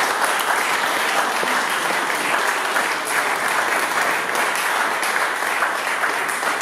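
Small seated audience applauding, a steady patter of many hands clapping.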